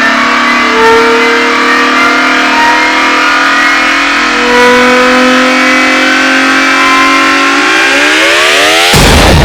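Many layered air horn blasts, edited so that their pitch climbs gradually, then sweeps up steeply near the end and breaks into a loud, noisy blast about nine seconds in.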